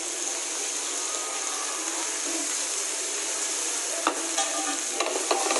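Sliced onions, mushrooms and meat sizzling in hot oil in a nonstick wok: a steady hiss. From about four seconds in, a few sharp knocks against the pan as the food is stirred.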